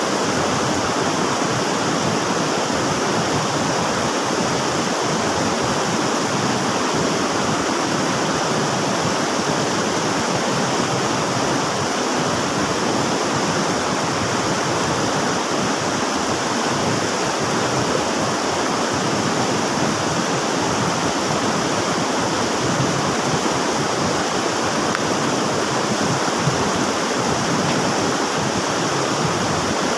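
River water rushing, a steady, unbroken flow with no other events.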